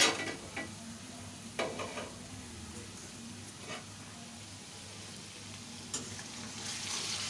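Masala paste of onion, garlic and cumin bubbling and sizzling in oil in a kadai. A metal spatula knocks against the pan a few times, and the sizzling grows louder near the end. The oil has risen to the top of the paste, the sign that the masala is fully fried.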